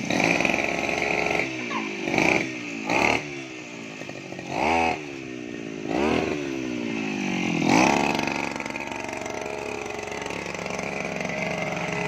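Brush cutter's small petrol engine revved up in a series of short bursts, its pitch falling back after each one, then running more steadily for the last few seconds.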